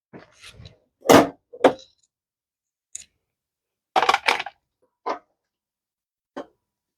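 Hammer tapping an undersized 11 mm socket onto a rounded-off, rusted nut to bite a grip on it: a handful of sharp metal knocks at uneven spacing, with a quick run of blows about four seconds in.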